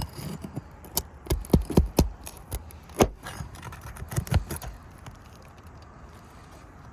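A metal roof snake working under asphalt 3-tab shingles to pry them up and pull their nails: irregular sharp clicks, knocks and scrapes through the first four and a half seconds, then quieter. The prying is tearing the shingles, taken as a sign that the roof is not repairable.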